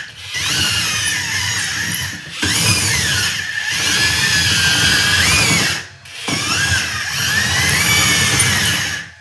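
Electric track drive motors and gearboxes of a 1/14 Volvo EC160E RC excavator whining as it drives on its tracks. The whine comes in three runs with short breaks between them, and its pitch rises and falls as the motors speed up and slow down.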